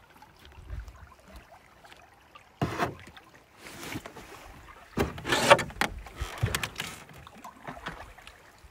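Canoe paddles dipping and pulling through calm stream water: a few separate splashing strokes, the loudest about halfway through.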